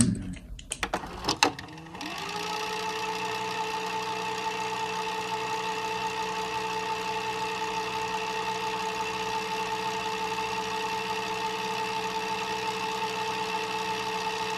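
A few clicks, then about two seconds in a steady machine-like whir that glides briefly up in pitch and holds an even hum: a VHS tape fast-forward sound effect.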